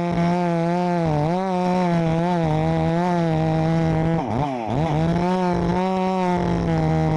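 Chainsaw engine running at high speed while cutting. Its pitch sags a little several times as it loads up in the wood, and just past the middle it drops steeply, bogging down, before climbing back.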